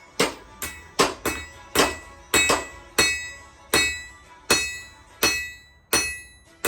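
Hammer blows on an anvil while forging a steel knife blade: about a dozen strikes at an uneven pace, some in quick pairs, with the anvil ringing between blows.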